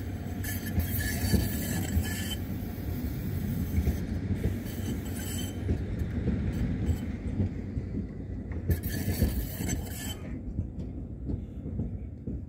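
Articulated low-floor tram rolling past at close range on a tram loop: a continuous low rumble of wheels on rail, with three short bursts of high hiss, about half a second, four and nine seconds in.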